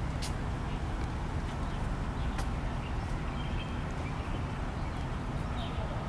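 City street background: a steady low rumble of road traffic, with a few faint clicks.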